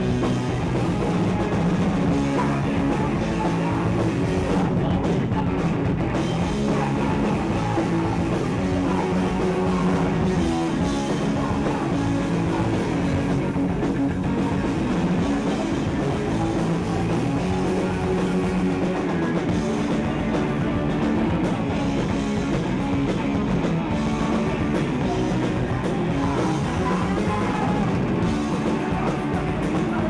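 Punk rock band playing live: electric guitar and drum kit with sung vocals, one continuous steady stretch of a song.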